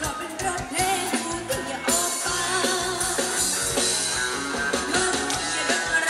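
Live Thai ramwong band music through a PA, with a singer's voice over a steady drum beat.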